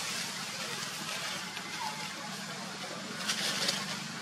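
Steady outdoor background hiss with a faint low hum, broken about three seconds in by two brief bursts of hissy noise.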